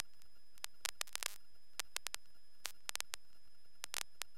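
Faint, irregular clicks and crackles of static on the Cessna 152's radio and intercom audio feed between transmissions, with short crackly clusters about a second in and near the end, over a faint steady high whine.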